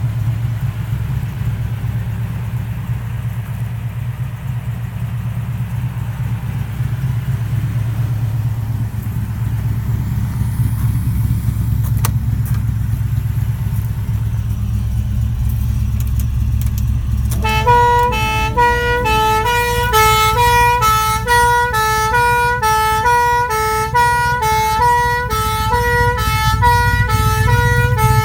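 Rover SD1 3500SE's 3.5-litre V8 idling steadily. About seventeen seconds in, the car's two-tone police horns start up and keep alternating between two pitches.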